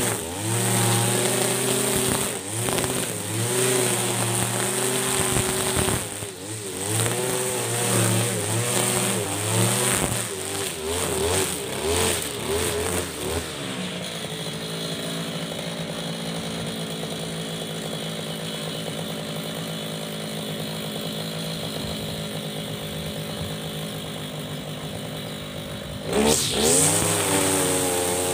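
Husqvarna 542RBS backpack brush cutter's 42cc two-stroke engine at high revs cutting thick grass with 2.4 mm nylon line, the pitch wavering under load. About halfway it drops to a steady idle, then revs up again near the end.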